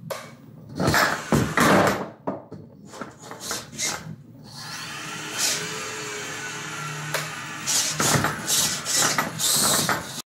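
Beetleweight combat robot with a spinning steel blade thrashing inside a test box: bursts of clattering knocks as it hits the walls and floor, with a steady whir of the weapon motor in the middle stretch, and more knocks near the end.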